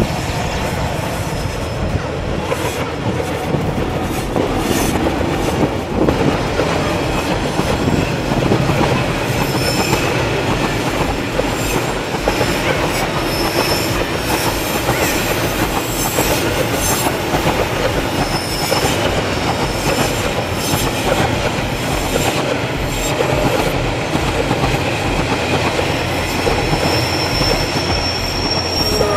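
Container freight train rolling past, its wagons' wheels clicking over rail joints, with brief high wheel squeals now and then.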